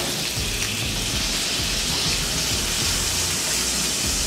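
Fish fillets frying in olive oil in a skillet on a gas stove: a steady sizzling hiss.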